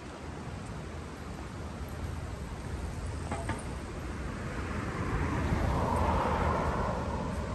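Steady low city traffic rumble, with one motor vehicle passing close: its noise swells over a couple of seconds about midway and eases off again near the end. A faint click sounds a little before the swell.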